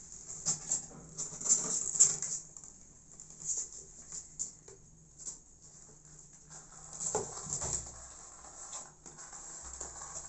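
Kittens' claws scrabbling and scratching on a cardboard box as they climb, in short irregular bursts.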